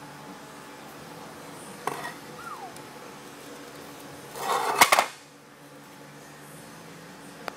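Metal parts clanking during an engine teardown: a single knock about two seconds in, then a louder clatter with sharp metallic knocks around four and a half to five seconds, over a steady low hum.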